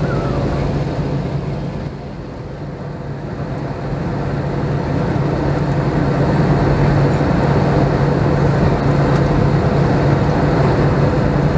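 Cabin noise of an Airbus A321-211 on descent: a steady drone of its CFM56-5B engines and the airflow past the fuselage, with a low hum underneath. The noise dips about two seconds in, then builds back up and holds steady.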